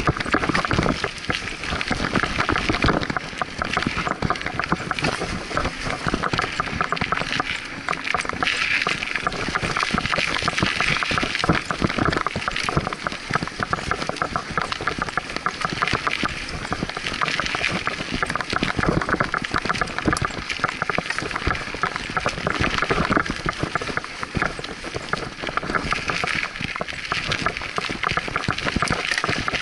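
Scott Aspect 35 mountain bike riding over a dirt singletrack: a steady stream of tyre noise and rapid small rattles and knocks from the bike over the rough ground.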